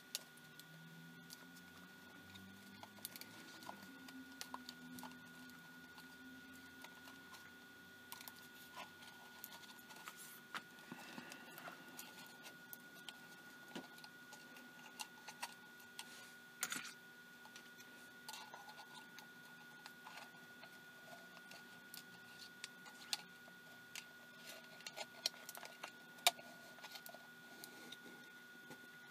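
Faint handling noises from a night vision monocular being reassembled by hand: scattered light clicks and taps of its plastic housing, foil shield and small parts, the sharpest near the middle and again near the end.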